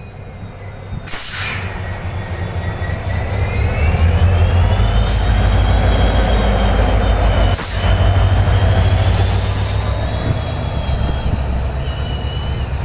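A train running close by on the rails: a heavy rumble that builds over the first few seconds and then holds, with high wheel squeal gliding up and down. Short loud hisses come about a second in and again for about two seconds just past the middle.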